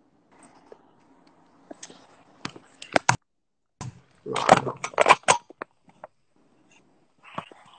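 Handling noise of a smartphone held close to its microphone: scattered knocks, clicks and scrapes, with a loud flurry of them about four to five seconds in.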